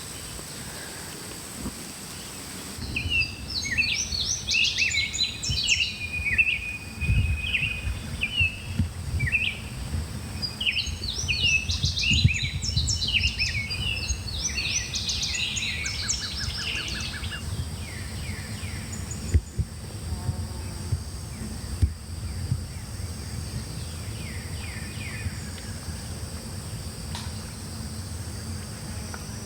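Songbirds chirping in quick runs of short high notes, busiest in the first half and thinning out later, over a steady low rumble.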